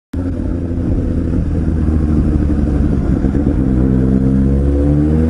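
Suzuki GSX-S750's inline-four engine through an Akrapovic slip-on megaphone exhaust, running under way and then climbing in pitch as the bike accelerates over the last couple of seconds.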